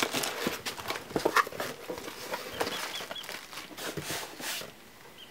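Cardboard box and packing material rustling and clicking as a box is opened by hand. A small bird chirps three times in quick succession about two and a half seconds in.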